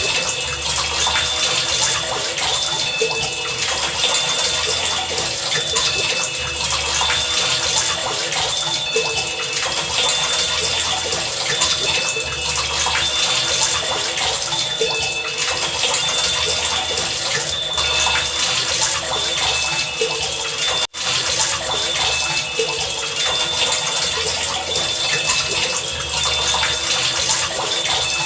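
Steady heavy rain. Faint short high tones and low pulses repeat under it about every two and a half seconds. The sound drops out for an instant about 21 seconds in.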